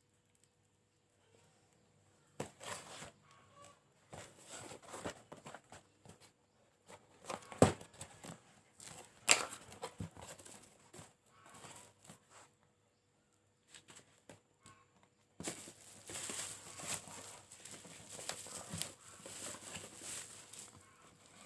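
A parcel being unpacked by hand: scattered crinkles, taps and knocks of packaging, with one sharp knock about a third of the way in, then continuous rustling and crinkling of wrapping from about two-thirds of the way through.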